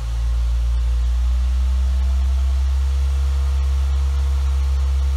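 Ford Fiesta ST150's 2.0-litre four-cylinder petrol engine running steadily at raised revs, roughly 2,000 to 3,000 rpm, heard from inside the cabin. It is being held above idle to warm up and push trapped air out of the cooling system.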